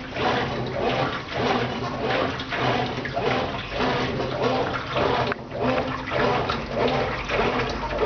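Brastemp Ative! top-loading washing machine agitating its load: water and clothes swish back and forth in regular surges about every three-quarters of a second, over the steady hum of the motor.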